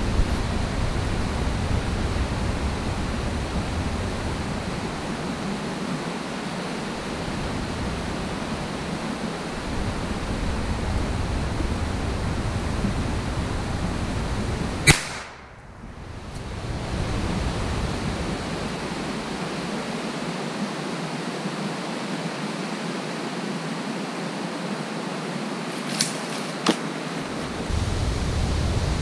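A steady hiss, with one sharp shot about halfway through, after which the sound drops away for a moment; two fainter clicks follow near the end.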